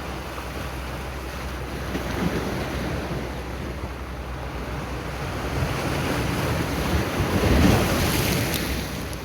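Sea waves washing onto the shore, one swelling to a louder crash about eight seconds in and then easing off, with wind rumbling on the microphone.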